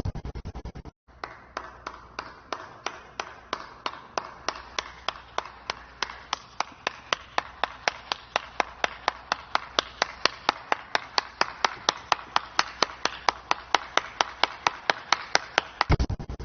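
A steady series of sharp claps or taps, about four a second, over a faint low hum, with a quick rapid flurry at the start and again near the end.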